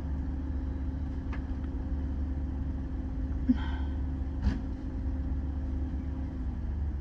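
Car engine idling steadily, a low rumble and hum heard from inside the cabin, with a few faint clicks.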